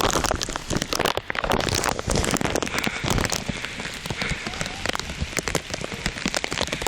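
Heavy rain falling, with a dense, continuous crackle of drops hitting close to the microphone.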